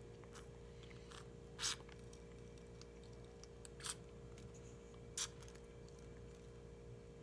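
A handful of short brushing, scraping strokes from someone working at a desk, about five of them with the loudest about a second and a half in, over a steady low hum.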